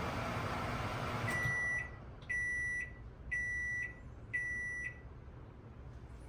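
GE over-the-range microwave oven running empty, its hum and fan noise stopping about a second in, followed by four end-of-cycle beeps about a second apart.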